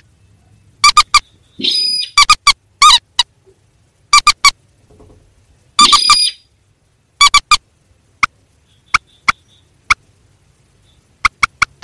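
Recorded rail calls of mandar and sintar birds, played loud as a bird lure. The calls are short, sharp notes in quick clusters of two or three, with a harsher, noisier call about six seconds in and widely spaced single clicking notes later.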